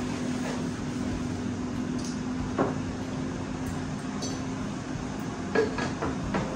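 Tabletop decorations, a round mirrored tray and a gold vase, being lifted and set down on a wooden dining table: a few light knocks and clinks, the loudest about two and a half seconds in and again near the end, over a steady low hum.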